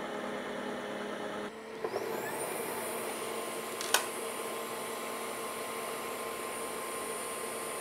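Dreame H12 Pro wet-dry vacuum running its self-cleaning cycle in the base station, its motor humming steadily while the roller spins. About a second and a half in, it cuts out briefly, then spins back up with a rising whine that settles into a steady high whine. There is a single click about four seconds in.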